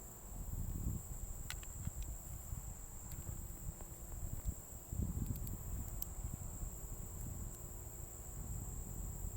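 Insects trilling steadily in one constant high-pitched tone, over a low rumble, with a few faint clicks.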